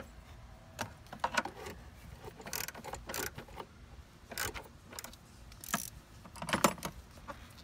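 Irregular metallic clicks and clinks of a wrench and a socket ratchet on an extension working the 10 mm fasteners of a car's engine-bay fuse box.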